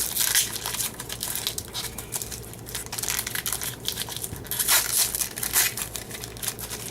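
Crinkling and rustling of a foil baseball card pack wrapper and card stock being handled, in irregular bursts, strongest about three quarters of the way through.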